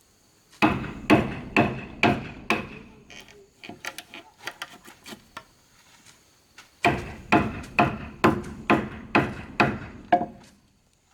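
Hammering: two runs of steady hammer blows, about two a second, with lighter taps and knocks in the pause between them.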